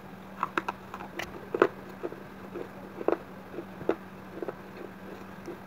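Crunching bites and chews on a piece of baked clay pot coated in red clay paste: about a dozen irregular sharp cracks as the fired clay breaks between the teeth, over a faint steady hum.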